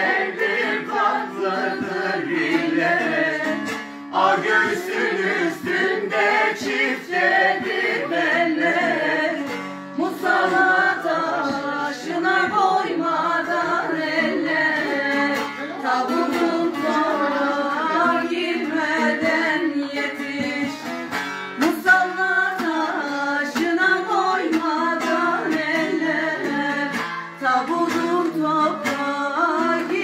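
A Turkish folk song (türkü) performed live: a voice singing a wavering melodic line to a plucked bağlama (saz).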